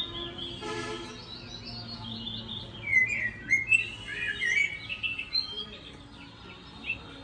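Small birds chirping, a run of short rising and falling calls that is busiest about three to four and a half seconds in.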